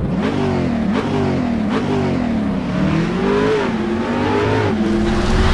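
Car engine revving, its pitch climbing and dropping back several times.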